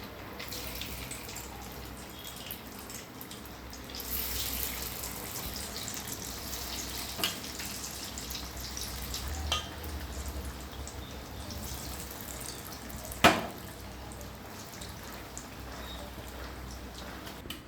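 Marinated chicken pieces frying in hot oil in a kadai: a steady crackling sizzle that gets louder about four seconds in. A few sharp knocks cut through it, the loudest about three-quarters of the way through.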